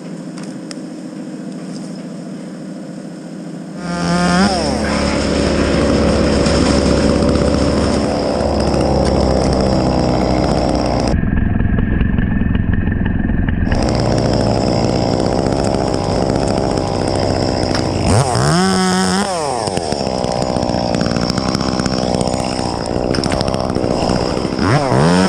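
A lower steady engine sound, then about four seconds in a chainsaw revs up sharply and runs loud and steady. Its revs rise and fall again about two-thirds of the way through and once more near the end.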